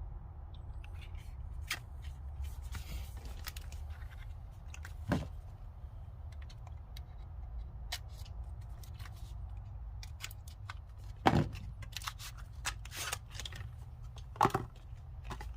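Handling of a boxed ratchet bit set: scattered light clicks, taps and scrapes of the packaging and case, with a sharper knock about five seconds in and two more near the end, over a low steady hum.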